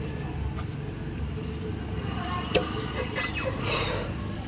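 Steady low rumble of vehicle traffic, with a sharp metallic tap about two and a half seconds in, followed by a few lighter clinks and a brief scrape from tyre-fitting work on a truck wheel.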